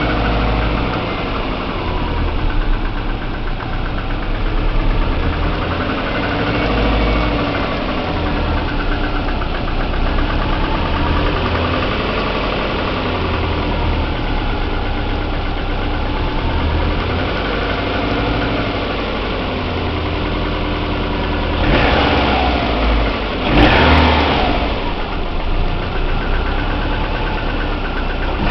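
Subaru EJ20T turbocharged flat-four engine idling with a knock inside it. Twice near the end the engine noise briefly swells louder, as when the throttle is blipped.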